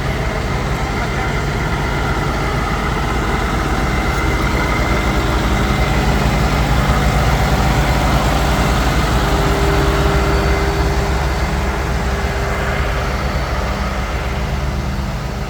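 Heavy engine running steadily, with a higher steady tone joining in for a few seconds midway.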